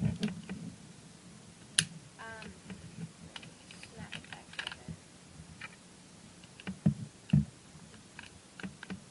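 Airsoft P226 spring pistol being handled and reassembled: scattered light clicks and knocks of its slide and parts, with a sharp click about two seconds in and two heavier knocks about three-quarters of the way through.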